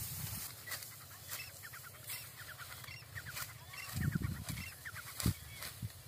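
Hand sickle slicing through dry, ripe wheat stalks: crisp snaps and crackling rustle as each handful is cut, with a couple of low thuds in the second half. Birds chirp in quick runs in the background.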